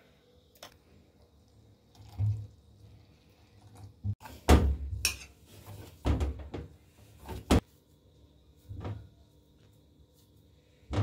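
Scattered knocks and thumps of a plate, spoon and hands on it while rice-flour dough is mixed and kneaded by hand, the loudest bump about four and a half seconds in.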